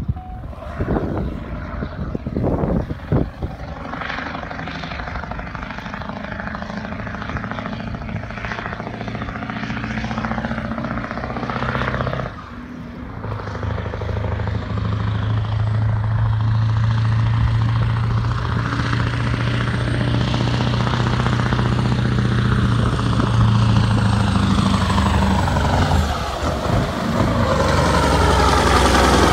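Mack Titan truck's big diesel engine pulling hard under heavy throttle as the truck approaches, growing steadily louder. Its note breaks off briefly about twelve seconds in and again near the end.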